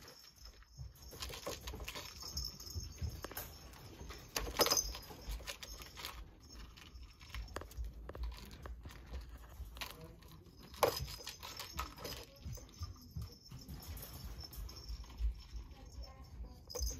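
Kittens playing with a plastic ball-track toy in a wire crate: irregular light clicks and rattles of plastic, with two sharper knocks, one about four and a half seconds in and one about eleven seconds in.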